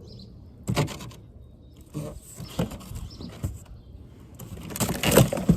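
Irregular knocks, scrapes and rustles of things being handled in a hurry, with the loudest burst of rustling noise near the end.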